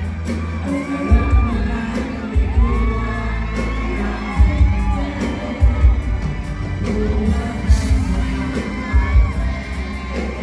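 Live pop music played loud through a concert PA, with a heavy bass line and a singer's voice over it, and the crowd cheering.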